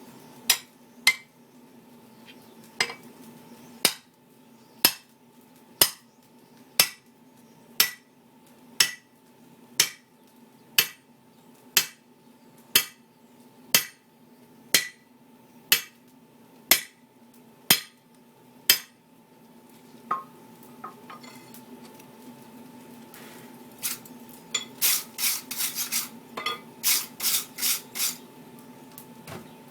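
Blacksmith's hammer striking hot steel on the anvil, about one measured blow a second for some twenty blows, as in drifting the eye of a hammer head. After a pause, a quick run of brighter, ringing metal taps comes near the end.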